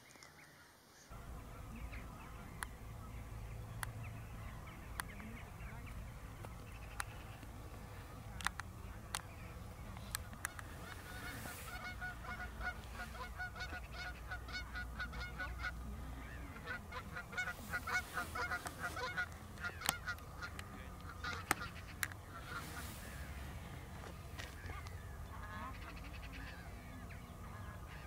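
Waterbirds calling at a wetland: scattered short, sharp calls, and through the middle stretch long runs of rapid, repeated calls, over a low wind rumble.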